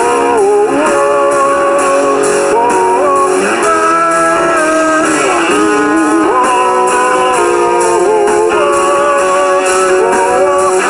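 Rock band playing an instrumental break, with a guitar carrying the melody in held notes that bend and slide between pitches.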